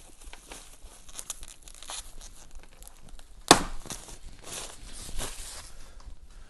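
Cardboard box and packing material being opened and handled: rustling and crinkling throughout, with one sharp, loud snap or knock about three and a half seconds in.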